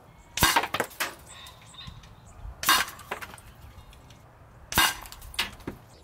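FX Crown .25-calibre PCP air rifle firing three shots about two seconds apart. Each is a sharp crack followed by a few quick clicks.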